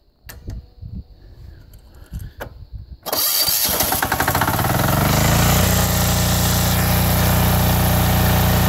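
A few clicks and knocks of handling, then about three seconds in the diesel generator's engine is key-started: it cranks and fires, rises in pitch as it comes up to speed, and settles into steady running.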